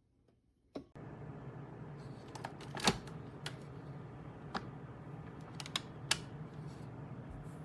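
Keurig K-Mini coffee maker starting up: a click about a second in, then a steady low hum, with several sharp clicks over it.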